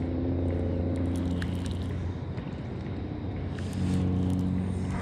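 A boat engine's steady low hum. It fades about halfway through and comes back near the end, with a few faint clicks.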